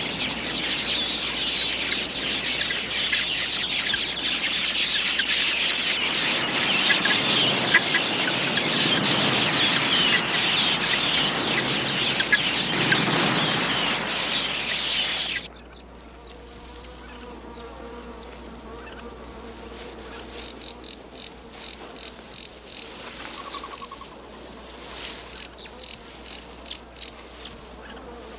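Dense, loud twittering of a huge flock of red-billed queleas, which cuts off suddenly about halfway through. A quieter insect background follows: a steady high trill with bouts of short, rapid chirps.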